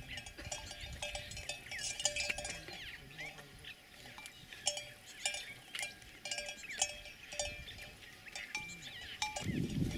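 Livestock bells clanking at an irregular pace, several strikes a second, mixed with short high chirps.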